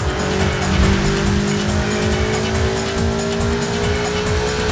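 Toyota 86 sports car engine held at high revs, its note sagging slightly, over music with a fast, even beat.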